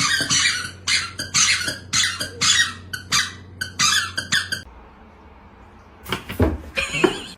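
A rapid series of short, high-pitched squeaks over a steady low hum, stopping about four and a half seconds in. After a short lull, a few louder noises follow near the end.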